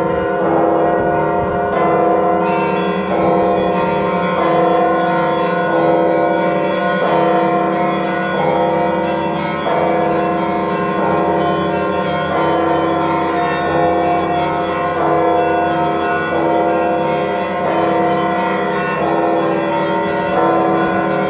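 Orthodox monastery bells rung as a continuous peal: smaller bells struck in quick succession, changing pitch every half second or so, over a steady low bell tone, all ringing on and overlapping.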